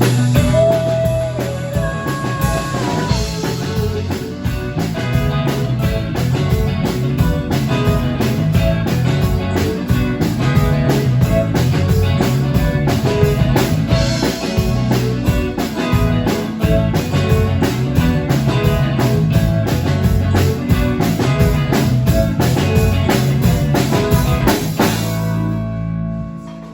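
Rock band playing, drum kit and guitar, with a steady driving beat; the music stops abruptly near the end.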